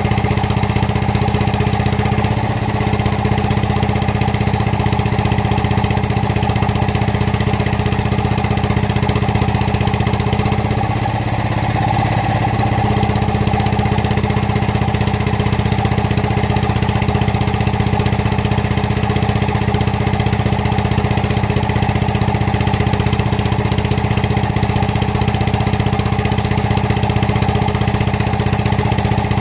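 Excavator's diesel engine idling steadily, a constant even running note.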